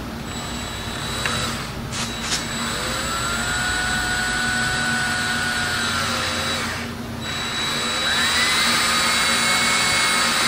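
Cordless drill running under load into PVC pipe over a wooden frame. Two quick trigger blips come first, then a run of about four seconds that winds up, holds and winds down, then a second, higher-pitched run near the end.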